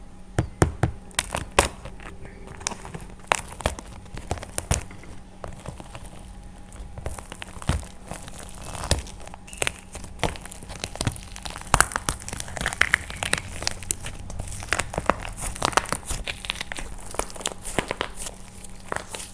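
Painted plaster clay being crushed and broken by hand: irregular sharp cracks and crunches, now single, now in quick clusters.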